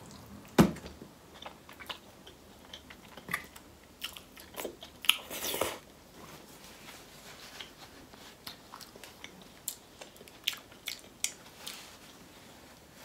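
Close-miked mouth sounds of a person chewing a mouthful of seafood boil: irregular wet smacks and sharp clicks, the loudest about half a second in and a denser cluster around the middle.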